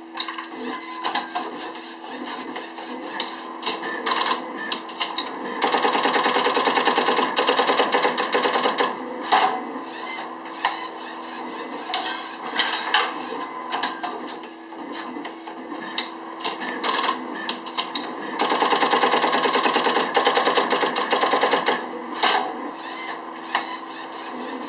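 NBS Advantage-series automatic card embosser at work: scattered clicks and clunks from the card feed and the turning embossing wheel. About a quarter of the way in and again about three quarters of the way in come stretches of rapid, steady hammering of about three and a half seconds each, as the punches stamp characters into a card.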